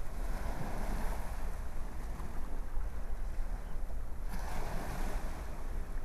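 Ocean surf washing onto a beach with a low wind rumble; a wave swells in near the start and another about four seconds in.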